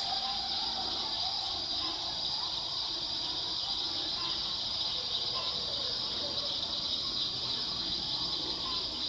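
Steady, high-pitched chorus of night insects, with faint, distant coyotes howling and yipping underneath.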